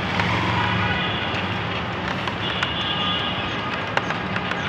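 Busy street traffic, with motorcycle and car engines running as they pass close by.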